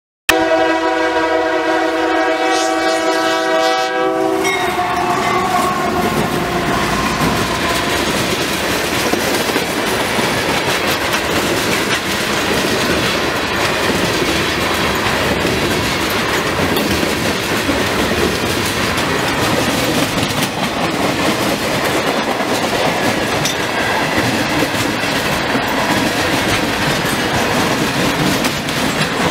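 A locomotive air horn sounds a multi-note chord for about four seconds. Then a train passes close by with a steady rumble and the clickety-clack of its wheels over the rail joints.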